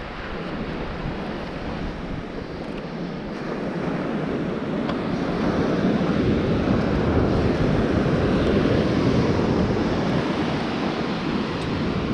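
Surf washing onto a sandy beach, with some wind on the microphone; the steady rush grows louder about four seconds in.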